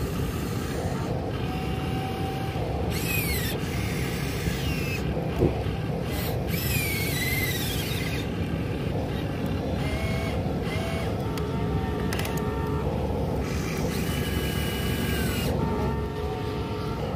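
Small electric motors of an RC excavator whining as the boom, arm and bucket work and the upper body swings, the whine rising and falling in pitch in several short strokes over a steady low noise.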